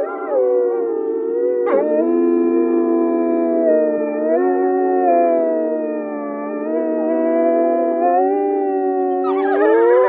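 Wolves howling: several long, held howls overlapping at different pitches, slowly gliding up and down. A fresh howl joins about two seconds in, and near the end the howls turn wavering and broken.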